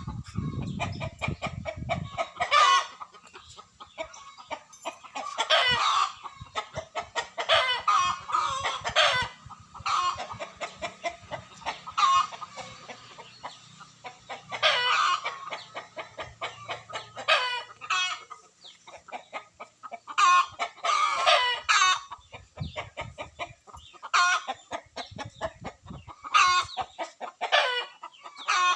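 Chickens clucking steadily, with louder calls breaking out every one to three seconds.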